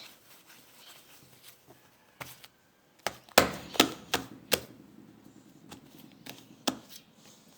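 Irregular sharp taps and clicks from mixing slime and kinetic sand in a pot, several close together in the middle and a few scattered ones later.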